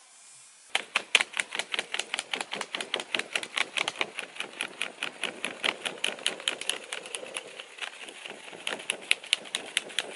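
A large dry leaf flapped rapidly back and forth to fan a wood fire's embers, each stroke a crisp flap, about four or five a second. The fanning starts about a second in and keeps an even pace.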